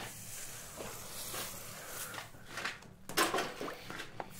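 Water poured from a tin can onto a red-hot steel bar over a slack tub, hissing and splashing as it cools part of the bar, with a louder burst about three seconds in. The cooling keeps only the hottest part soft, so that the upsetting blows move that part most.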